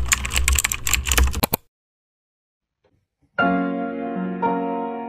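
Rapid keyboard typing sound effect, a dense run of clicks that stops about a second and a half in. After a short silence, soft piano music begins with sustained chords.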